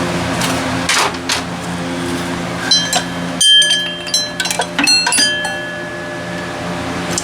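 Metal hand tools and parts clinking and knocking against each other, several sharp ringing clinks bunched near the middle, over a steady low hum.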